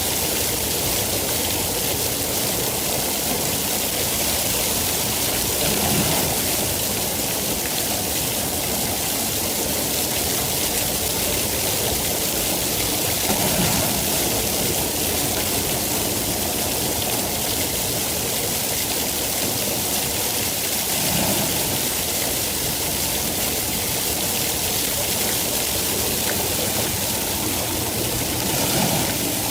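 Steady heavy rainfall, a dense even hiss, swelling slightly in the low end about every seven seconds.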